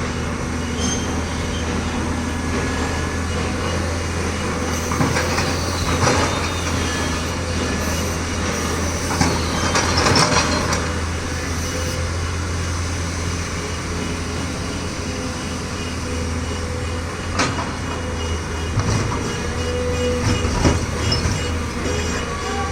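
Heavy machinery running steadily with a deep engine rumble, broken by occasional metal knocks and brief high squeals.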